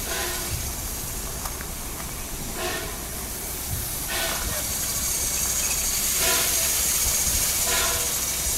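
Steam locomotive hissing steam, growing louder about four seconds in.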